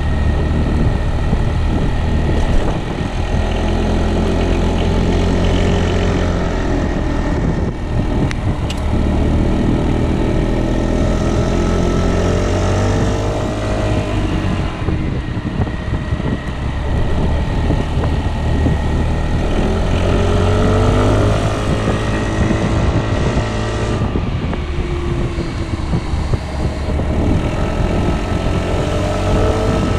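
Piaggio Beverly 300 scooter's single-cylinder engine running under way, its pitch rising and falling several times as the ride goes on.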